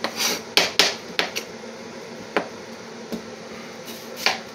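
Kitchen knife chopping onions on a cutting board: irregular sharp knocks, a quick run of them in the first second and a half, then a few single strokes spaced about a second apart.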